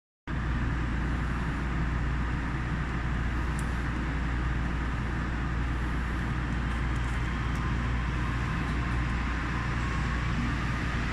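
Steady rumbling run of a Yui Rail monorail car, heard on board, with a strong low hum and an even rushing noise that holds at one level throughout.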